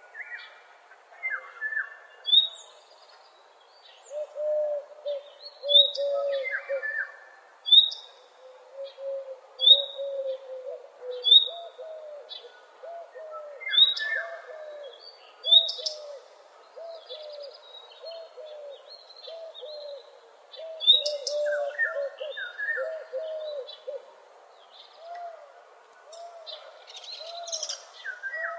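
Several songbirds singing and calling together as a morning chorus: bursts of short, high repeated chirps and a few mid-pitched phrases over a near-continuous run of low, repeated arching notes.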